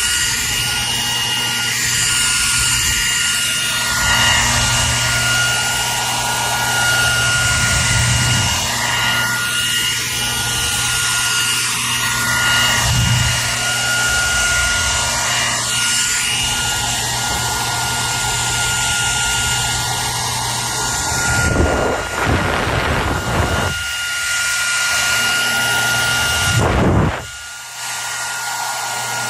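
Hair dryer running continuously: a steady rush of blown air over a constant high motor whine and a low hum. The level shifts a little throughout and dips briefly near the end.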